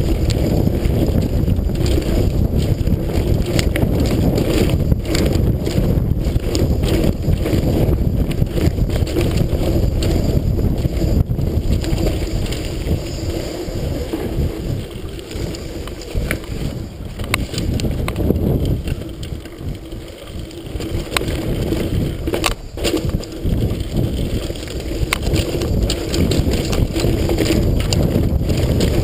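Pivot mountain bike riding fast down a dirt singletrack, heard through a GoPro: wind buffeting the microphone over the rumble of knobby tyres on dirt, with sharp knocks and rattles from the bike over bumps. It eases off for a few seconds about two-thirds of the way through, then picks up again.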